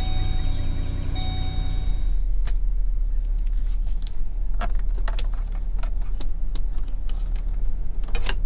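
Chevy Express van engine idling with a steady low rumble just after being started with the key. A steady high tone sounds over it and stops about two seconds in, and scattered clicks and knocks follow.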